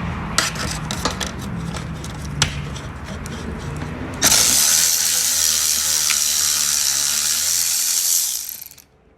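Scattered light metal clicks over a low hum, then, about four seconds in, a pneumatic tool on a condenser mounting bolt starts with a loud steady hiss of compressed air. The hiss lasts about four seconds and cuts off near the end.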